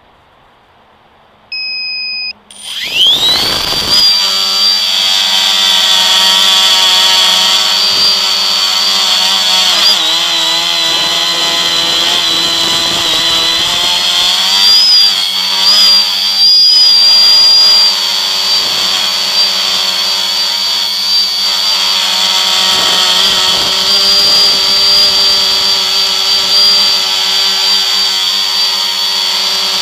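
A short beep, then a multirotor drone's electric motors and propellers spool up about three seconds in to a loud, high, steady whine that wavers slightly in pitch as it flies, heard close up from a camera mounted on the drone.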